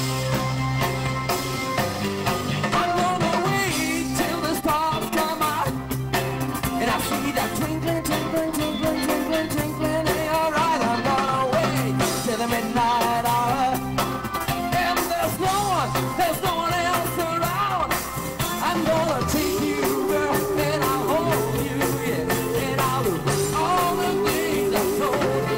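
A live rock band playing a song, with drum kit, guitars and keyboards, and a wavering lead melody line over a steady beat.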